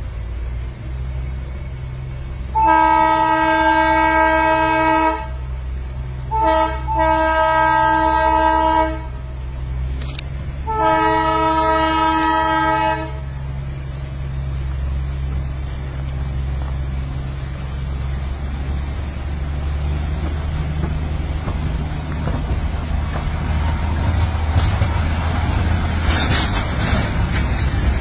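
Narrow-gauge train sounding three long horn blasts, each about two to two and a half seconds, the second starting with a short stutter, over the steady low running of its engine. After the horn, the train's rumble grows louder as it draws close near the end.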